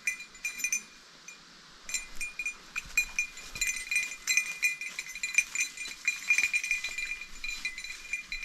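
An English setter's dog bell jingling in quick, irregular rings as the dog moves through cover, with a pause of about a second near the start.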